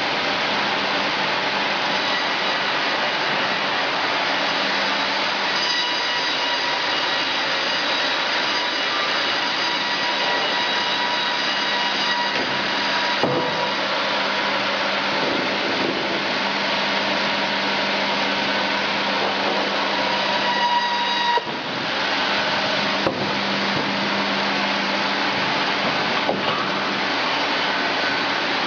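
Woodworking machinery running steadily: a constant noisy whir with a low hum and a faint high whine. Two sharp knocks, and the sound changes suddenly about three-quarters of the way through.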